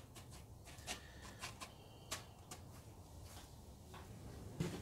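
Faint scattered ticks and rustles of coarse salt being spread with a gloved hand in a plastic tub, over quiet room tone.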